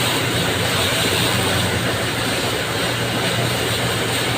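Steady engine drone with a broad rushing hiss over it, from the flushing equipment hosing down the pavement with water.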